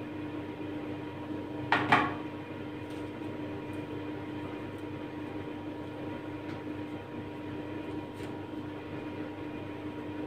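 A metal spoon clatters once against a mixing bowl about two seconds in, over a steady low appliance hum that runs throughout, with a few faint handling ticks later.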